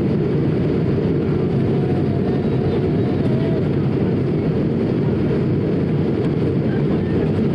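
Steady cabin noise of an Airbus A220-300 in descent, heard from a window seat over the wing: an even, low rushing drone of airflow and its Pratt & Whitney PW1500G geared turbofan engines.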